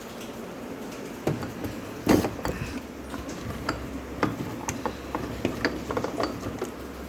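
Containers and items being handled in a refrigerator: a string of irregular clicks and knocks, the loudest a thump about two seconds in.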